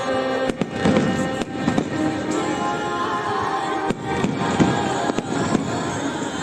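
Fireworks bursting in a run of sharp bangs, about seven at irregular moments, over loud music from the show's soundtrack.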